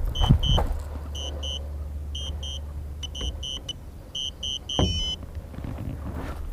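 Electronic warning beeps: short high beeps in quick pairs about once a second, turning into runs of three, then a brief rapid trill about five seconds in. A low steady hum sits under the first half.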